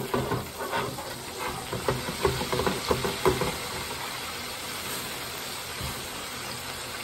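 Catfish nuggets deep-frying in hot oil, a steady hiss. For the first three seconds or so, the wire fryer basket clinks and rattles against the fryer as it is set down.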